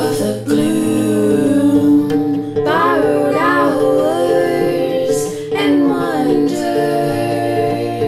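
A woman singing a slow melody over her own plucked harp accompaniment, the harp notes ringing on beneath the voice.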